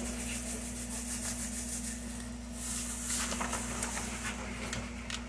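Faint rustling and rubbing as white sugar is poured into a bowl of mashed sweet potatoes, over a steady low hum.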